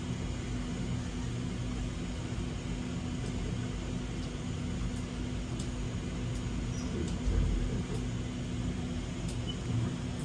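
Steady low rumble with a constant hum and a few faint clicks.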